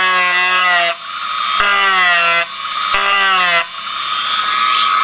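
Rotary tool with a metal cut-off disc grinding a flat spot into a metal wheel axle for a set screw. The motor's whine sags in pitch through each pass as the disc bites and slows it, then jumps back up at short breaks, three or four times.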